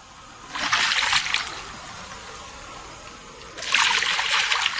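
Water splashing in two bursts of about a second each, one about half a second in and one near the end.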